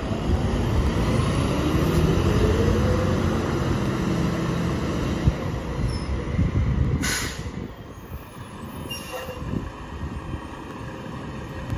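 Mack LR garbage truck's engine pulling away, rising in pitch as it accelerates over the first few seconds. A short hiss of air brakes comes about seven seconds in.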